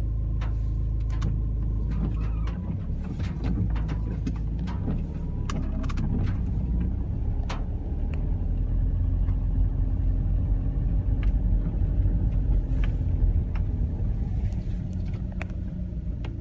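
Car engine and road noise heard from inside the cabin: a steady low rumble as the car rolls slowly along a lane, with scattered sharp clicks and ticks.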